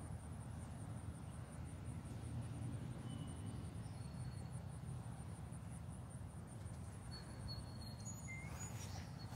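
A steady, high-pitched pulsing insect trill, like a cricket's, over a low outdoor rumble. A few brief high chirps come near the end.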